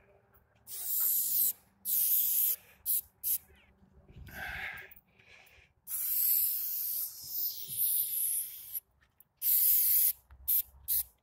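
Aerosol spray paint can spraying in a string of short hissing bursts, with one longer spray of about two and a half seconds just past the middle.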